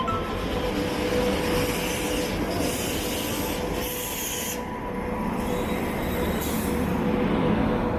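A train moving along the rails, with a steady whine from its steel wheels over the running noise.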